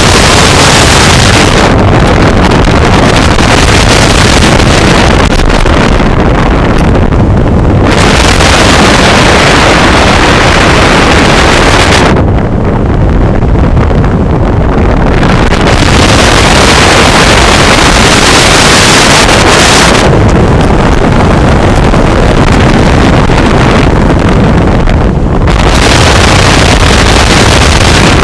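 Wind rushing over a camera microphone in the airflow under a parachute canopy: a loud, steady rushing noise that turns brighter and duller in long swells every few seconds as the flight changes.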